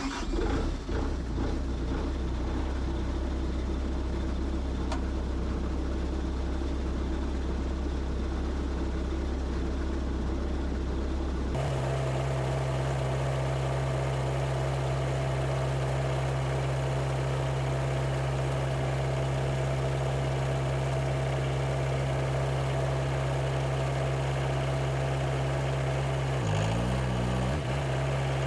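Bobcat S160 skid steer's diesel engine starts and runs at a steady low idle, then is throttled up to a higher steady speed about eleven seconds in. Near the end the engine note briefly wavers. This is a test run after a leaking hydraulic line was replaced.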